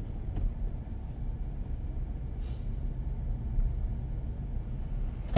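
Steady low rumble of a car's engine and tyres heard from inside the moving car's cabin.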